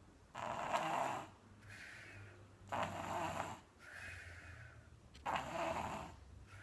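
A baby snoring in its sleep: three louder snoring breaths about two and a half seconds apart, with softer breaths between them.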